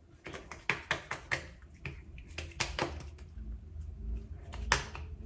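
Fingertips patting and pressing a skincare essence into the skin of the face, making a series of soft, irregular taps and light slaps.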